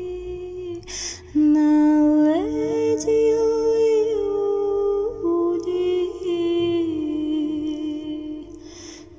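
Wordless humming voices holding slow, drawn-out notes in harmony, sliding up into each new pitch, with an audible breath about a second in and again near the end.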